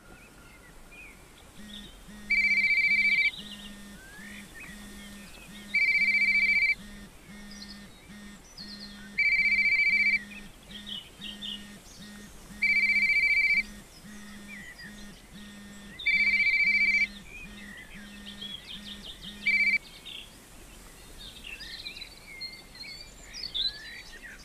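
Mobile phone ringtone: a loud electronic two-tone beep about a second long, repeating six times at about three-and-a-half-second intervals, with a low buzzing pulse beneath it. The ringing stops abruptly partway through the sixth beep as the call is answered.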